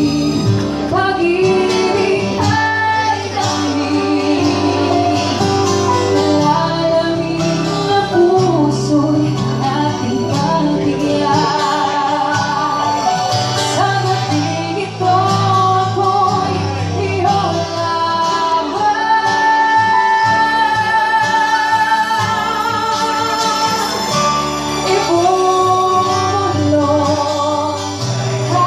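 Live music: a woman singing a slow ballad into a microphone, backed by a keyboard playing piano chords and a strummed acoustic guitar. She holds several long notes with vibrato in the second half.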